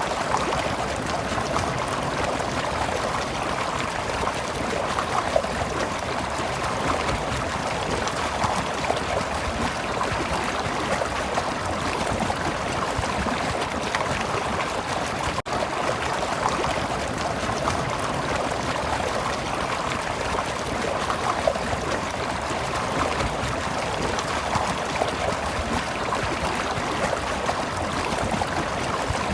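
Water of a stream flowing and gurgling steadily, with one momentary dropout about halfway through.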